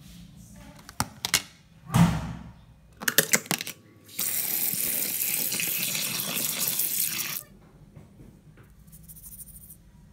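Kitchen tap running into a plastic tub of fish in a stainless-steel sink as the fish are rinsed by hand, a steady rush of water lasting about three seconds in the middle. Before it come several sharp knocks and rattles of the plastic tub being handled, and after it the water stops.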